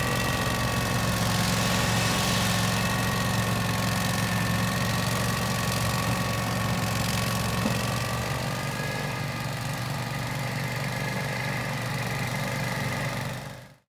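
Husqvarna Rider 419TxS AWD ride-on's engine and front-mounted snow thrower running steadily as it clears snow, with a steady high whine over the engine note. The low engine sound eases a little past the middle, and everything fades out at the end.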